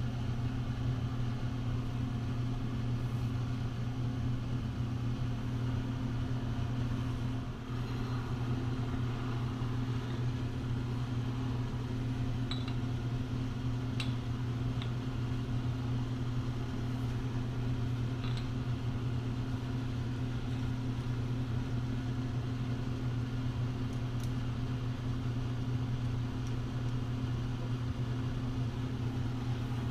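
A steady low machine hum runs throughout, with a few light clicks and taps of metal parts: a block and a clamp being set against an angle plate on the surface plate.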